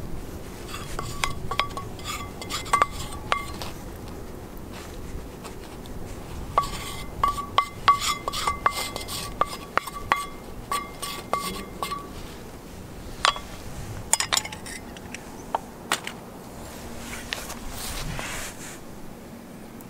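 Curry being scraped out of an iron frying pan onto a metal plate with a wooden spatula: repeated clinks and taps, each leaving the plate ringing briefly. It comes in a short bout, then a longer one of several seconds, then a few single clinks.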